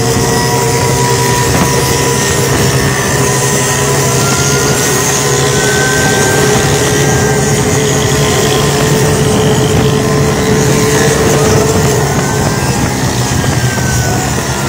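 Auto-rickshaw engines running at speed in a race: a steady, loud engine drone over rushing road noise, with a higher engine note rising and falling slowly now and then.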